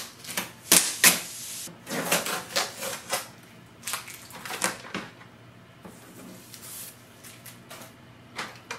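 Blue protective tape being peeled off a new printer's plastic casing, then packing paper rustling as it is pulled out from under the scanner lid: a string of short, irregular peeling and rustling sounds, busiest in the first few seconds.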